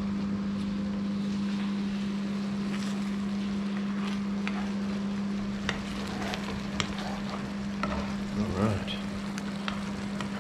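Steady electrical hum of a running microwave oven, over sauce sizzling in a pan, with a few light clicks.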